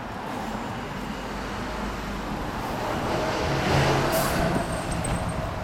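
Kawasaki Vulcan 400 V-twin running at idle through Marving aftermarket dual mufflers, a steady low exhaust note that grows louder a little past the middle and then eases off again.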